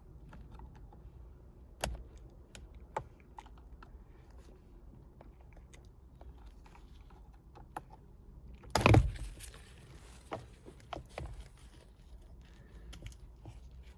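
Small clicks and scrapes of a hand tool working at an airbag's plastic connector clips to pull the connector loose, with one louder knock about nine seconds in. The connector is tight and slow to come out.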